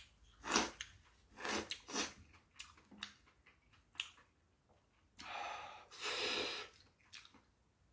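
Chewing and breathing sounds at close range, with a few short, sharp breaths early on and one long breathy exhale about five seconds in.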